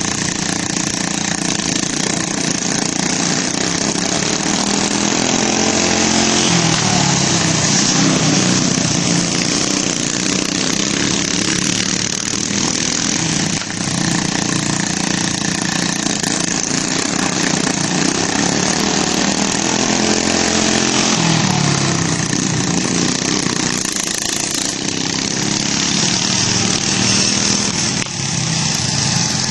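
Riding lawn tractors with small 11 hp Briggs & Stratton and 12 hp Kohler engines running at speed, their engine notes rising and falling as they pass, swelling louder about six seconds in and again about twenty seconds in.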